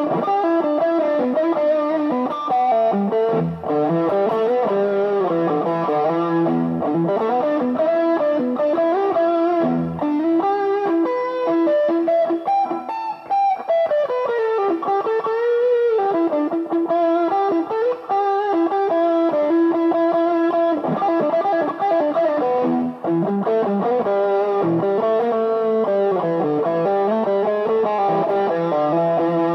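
Washburn MG-300 electric guitar played through a lightly distorted tone, with melodic single-note lines and chords and a bend of the pitch down and back up about halfway through.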